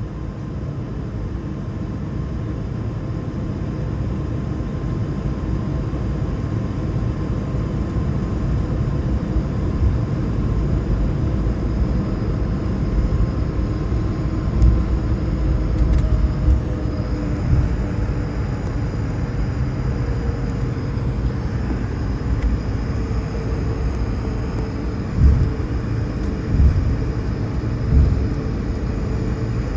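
Jet airliner cabin while taxiing onto the runway: a steady engine hum and rumble that grows slowly louder, with a few faint tones drifting in pitch. About three short thumps come near the end.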